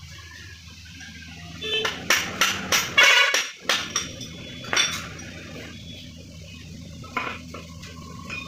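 Steel shaft and bearing clinking and knocking against the cast gearbox housing of a Swaraj 742 XT tractor as they are fitted by hand: a cluster of sharp metal clinks from about two to five seconds in, thickest around three seconds, over a steady low hum.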